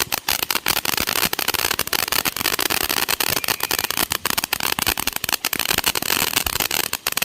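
Consumer fireworks crackling: a fast, dense, irregular string of small sharp pops over a continuous hiss, cutting off abruptly near the end.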